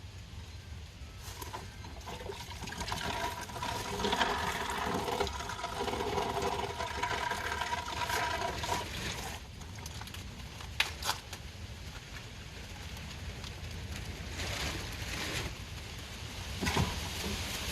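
Strong wind rumbling and buffeting over the microphone. A pitched hum runs for several seconds in the first half, and a couple of sharp clicks come past the middle, with a loud knock at the end.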